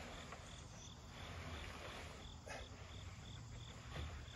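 An insect chirping steadily at one high pitch, about three chirps a second, with a couple of faint knocks.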